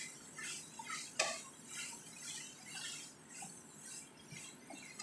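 A spatula scraping and turning shredded chicken in a nonstick frying pan, in repeated strokes about two a second, with one sharper knock about a second in.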